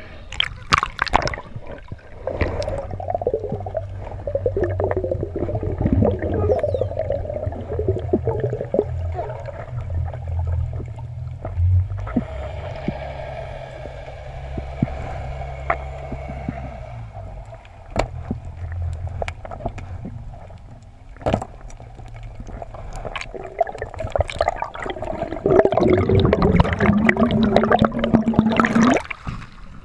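Muffled underwater sound heard through a camera housing: a steady low rumble of moving water with gurgling and scattered sharp clicks and knocks. It grows louder for the last few seconds.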